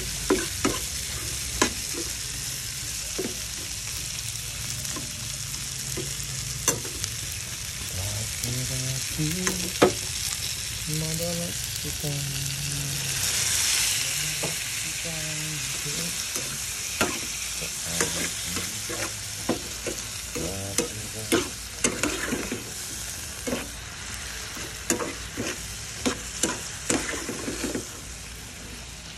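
Shrimp and garlic sizzling in hot oil in a nonstick frying pan, a steady hiss broken by frequent clicks and scrapes of a metal fork and slotted spatula stirring them against the pan. The sizzle swells briefly about halfway through.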